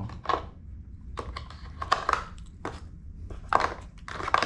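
Plastic packaging crinkling and rustling in irregular bursts as accessories are pulled out of a camera box.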